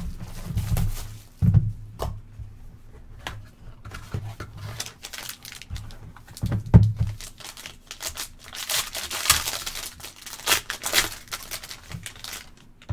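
A sealed trading-card box being opened by hand: knocks and rubbing of cardboard and plastic wrap, then, from about eight seconds in, the foil pack wrapper inside crinkling and tearing as it is pulled open.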